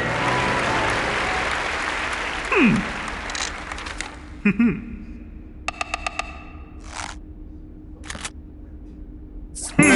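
Cartoon sound effects: a noisy wash like applause fades out over the first four seconds, with a sharp falling whistle about two and a half seconds in. A scattered series of short clicks and taps follows, including a quick run of them in the middle, and music comes in just before the end.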